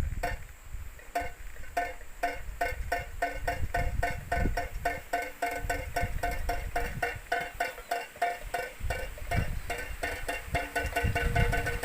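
Home-made PVC-pipe bird-scaring windmill (klencer) clacking as it turns, each knock a hollow, pitched tok. The knocks start about one a second and speed up into a rapid rattle as the windmill spins faster.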